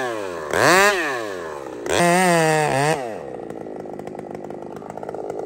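Gas chainsaw revved in three quick bursts, each a rising then falling whine. About three seconds in it changes to a steady full-throttle run as the chain cuts into a tree trunk.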